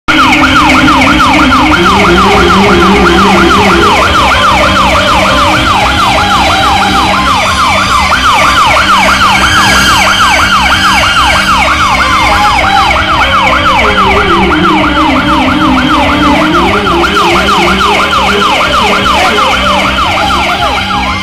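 Electronic ambulance-style siren effect, a fast warbling rise-and-fall wail repeating evenly, with a slow melody line gliding underneath.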